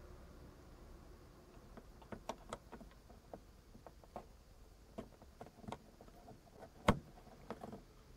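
Small plastic clicks and taps of fingers working an LED unit and its wire connector into a Suzuki Jimny Sierra's roof dome-light housing, with one sharper click about seven seconds in.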